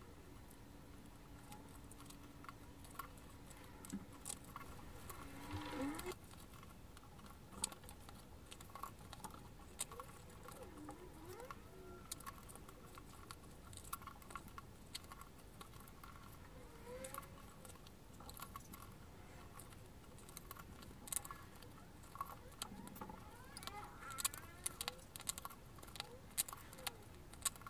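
Faint handling sounds of a leather bag panel: scattered light taps, clicks and rustles as the leather is flexed and pressed on a cutting mat. A few brief rising swishes come from stitching thread being drawn through the leather.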